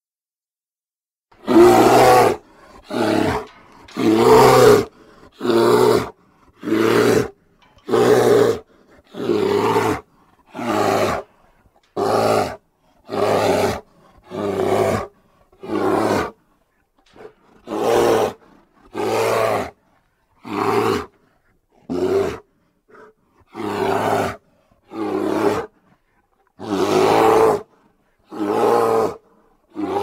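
A series of about twenty deep animal roars, each about a second long, with short silences between: a sound-effect compilation of roars made to stand for the extinct short-faced bear, Arctodus.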